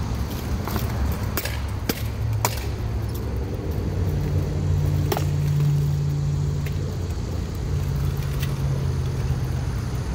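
A few sharp knocks from steel armour and weapons during a sword-and-shield bout in plate armour, over a steady low vehicle drone that swells in the middle.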